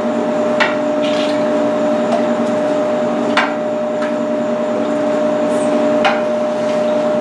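A metal spoon knocks sharply three times, a few seconds apart, against a stainless steel stockpot and a ceramic bowl while liquid is spooned from one into the other. Under it runs a steady machine hum with a few held tones.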